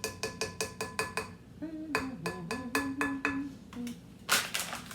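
A utensil beating batter in a mixing bowl, striking the bowl's side over and over in quick clinks that ring briefly, several a second, slowing a little in the second half.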